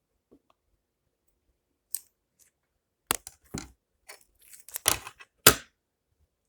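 Scissors snipping about five times in separate sharp cuts, the last one the loudest.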